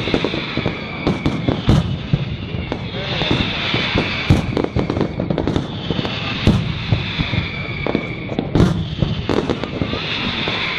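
Fireworks display going off: a rapid, irregular series of sharp bangs over continuous crackling.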